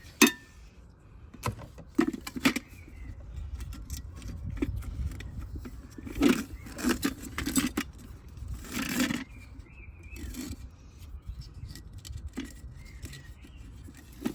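Handling noise from a nested metal camping cook set as its strap is threaded through and pulled tight: scattered clicks, scrapes and light knocks, with a short rustling scrape about nine seconds in.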